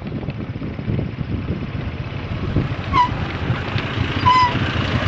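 Wind buffeting the microphone over a steady low rumble of road traffic. About three seconds in, and again a second later, there is a short high chirp.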